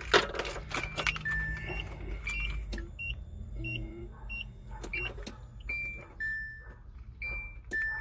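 Key and keyring jangling and clicking in a 1992 Nissan Hardbody D21's ignition switch as it is worked back and forth, with short beeps at a few different pitches cutting in and out. The truck does not start: the owner takes the ignition switch for the failing part.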